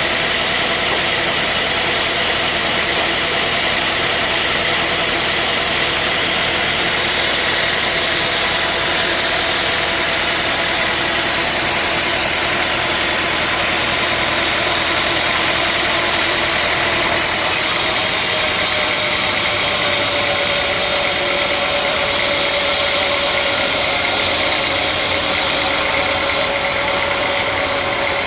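Sawmill machinery running steadily: a motor-driven saw with a constant mechanical drone and whine, its pitch dropping slightly about two thirds of the way through.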